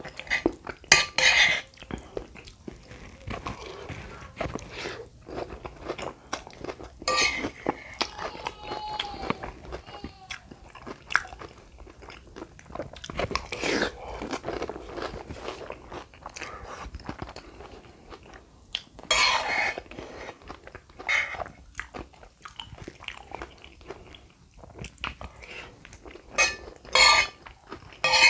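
Close-miked mukbang eating of lontong padang in gulai curry sauce: wet chewing and crunching of mouthfuls with red crackers mixed in, with slurps and a metal spoon clinking and scraping on the plate in scattered sharp clicks.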